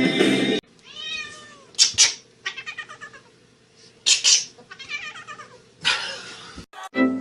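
A domestic cat meowing and yowling in a string of drawn-out, wavering calls, with loud shrill cries about two seconds in and again about four seconds in.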